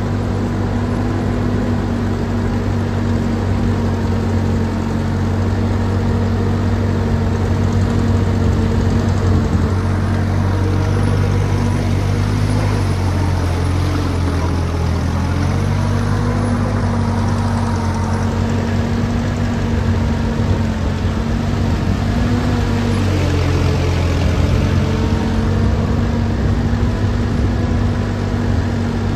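Ford 9N tractor's four-cylinder flathead engine running steadily while driving through mud, with another tractor running just ahead. Its pitch sags twice, around the middle and again later, as the engine pulls through the mud.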